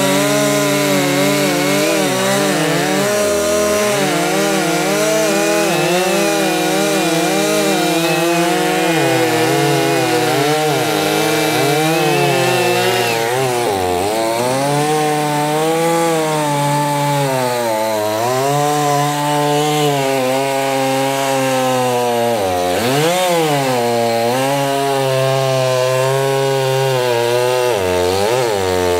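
Two big two-stroke chainsaws, a Stihl MS 881 and a Holzfforma G660, running at full throttle through an oak log, their engine pitch dipping and recovering as the chains bite. About halfway through, the Stihl finishes its cut and drops out of the wood, and the G660 keeps cutting.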